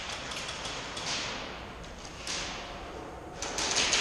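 Airsoft guns firing in a large echoing hall: scattered shots with long echoes, then a quick string of sharp shots near the end.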